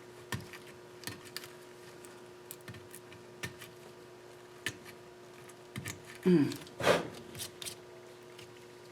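Hand scraping of old gasket residue off the aluminium intake sealing surface of a KA24DE engine: scattered light scrapes and ticks, with a couple of louder scrapes about six to seven seconds in, over a faint steady hum. The residue is being cleaned off because left in place it would cause an intake leak.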